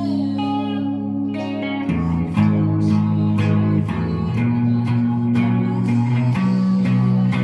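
A band playing an instrumental passage: electric guitar and bass guitar hold sustained chords that change every couple of seconds, over a steady beat of crisp percussive hits.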